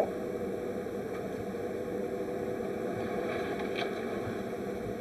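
Steady low rumble of harbour ambience.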